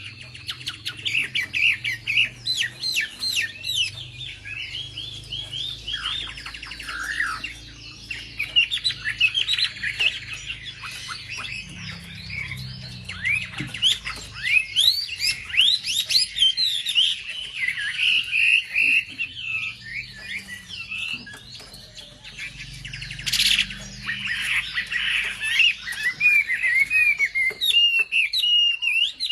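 Wambi songbird singing a fast, varied run of chirps, trills and short rising and falling whistles without a break, used as a lure song to rouse other wambi birds.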